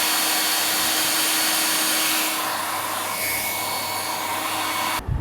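Philips hair dryer running on its second, hot-air setting: a steady rush of air with a few steady tones running through it. The sound turns slightly duller and quieter about halfway through, then stops abruptly when the dryer is switched off near the end.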